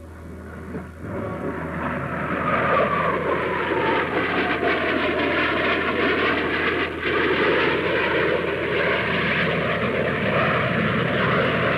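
Airplane engines running, building over the first couple of seconds into a steady loud noise, with a tone that falls in pitch between about three and six seconds in.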